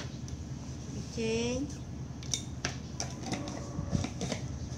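Scattered light clinks and taps of kitchen dishes and utensils over a steady low hum, with a short rising voice sound about a second in.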